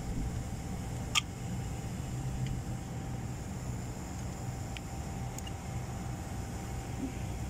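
Steady low mechanical hum from running machinery, with one sharp click about a second in.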